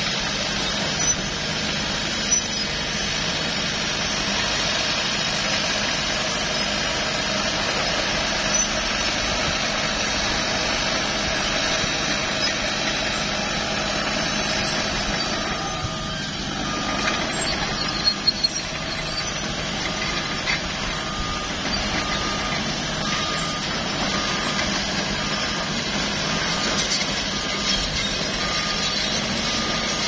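Diesel engine of a Cat crawler bulldozer running steadily under load as it pushes soil. From about halfway through a reversing alarm beeps at a steady beat, a little more than once a second, and a few sharp clanks sound just after it starts.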